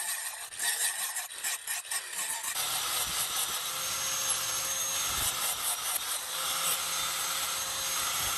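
Angle grinder with a flap disc grinding a steel knife blade, uneven and scratchy. About two and a half seconds in it gives way to an electric disc sander running steadily against the blade with a faint high whine.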